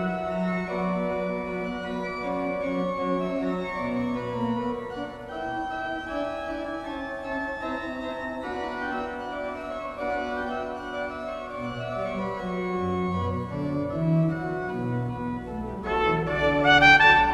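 Church pipe organ playing a slow passage of held notes over a changing bass line. Near the end a trumpet comes in, louder, over the organ.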